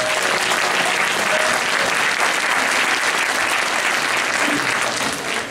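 Audience applauding, a steady clapping that dies down near the end.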